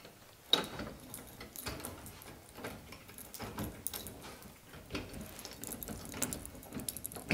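A snack and drink vending machine being opened and handled: a string of irregular metal clicks, knocks and rattles.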